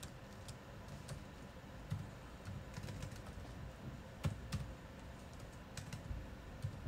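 Computer keyboard typing: irregular, scattered keystrokes.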